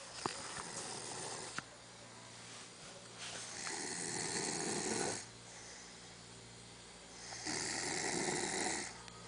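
A person snoring in sleep: a softer snore at the start, then two long, loud snores about four seconds apart.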